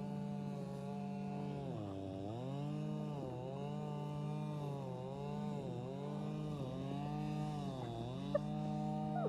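A small motor running steadily, its pitch dipping briefly about every second or two as if it were loaded and then freed.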